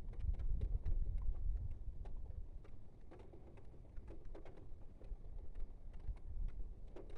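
Heavy thunderstorm rain with storm gusts rumbling on the microphone, and many scattered sharp ticks of raindrops striking a hard surface.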